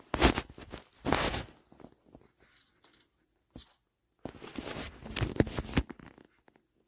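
Two bursts of rustling, crackling handling noise with scattered clicks, the first early and the second starting about four seconds in.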